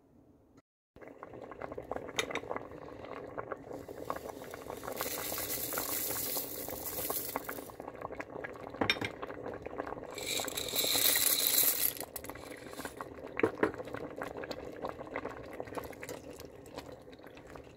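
Lentil and tamarind soup bubbling at a boil in a stainless steel pot, with many small pops and clicks. Twice, about five seconds in and again about ten seconds in, a louder hissy rush lasting a couple of seconds as dry pasta is tipped into the pot.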